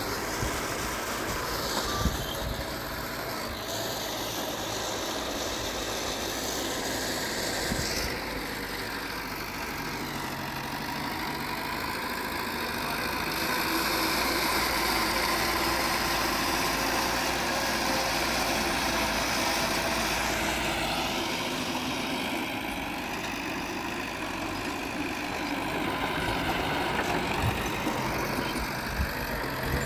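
Heavy diesel engine of earthmoving machinery running steadily, a little louder in the middle, with a few sharp knocks.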